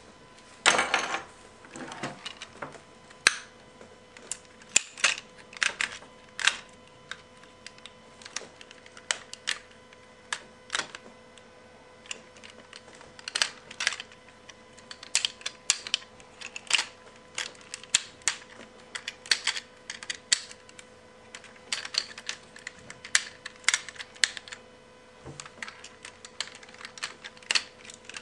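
Plastic parts of a Transformers Sixshot toy clicking and snapping as it is handled and transformed: many sharp, irregular clicks, several a second at times.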